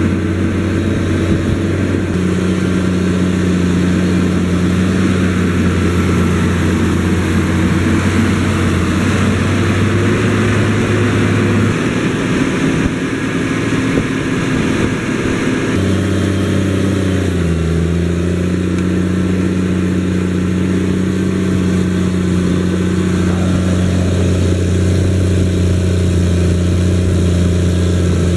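The 360 hp diesel engine of a Challenger MT765C rubber-tracked tractor running steadily under heavy load while pulling a deep-working cultivator. Its note shifts and dips briefly a little past halfway, then settles again.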